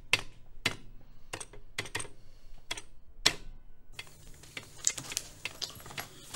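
Electric typewriter keys striking in an irregular run of sharp single clacks. About four seconds in, this gives way to softer paper rustling as the pages of a folder are leafed through, over a low steady hum.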